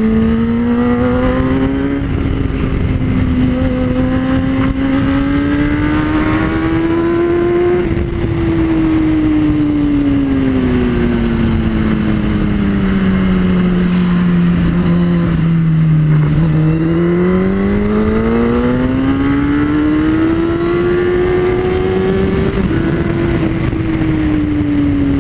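Sport motorcycle's engine heard onboard at track speed, its pitch climbing, then sinking slowly through a long corner, climbing again and dropping sharply at an upshift about 22 seconds in, with steady wind rush over the bike.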